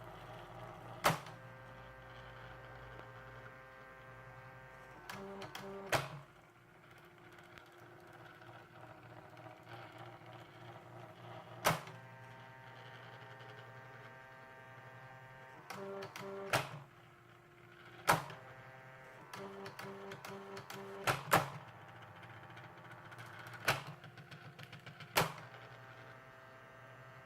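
CasioWriter CW-10 electronic typewriter running its factory demo mode: a steady motor hum, short bursts of mechanical buzzing as it prints, and sharp single clacks every few seconds, sometimes two close together.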